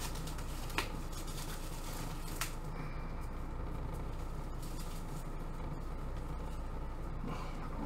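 Steady low mechanical room hum, with two short sharp clicks, one a little under a second in and one about two and a half seconds in, as a wrapped plastic test tube is handled.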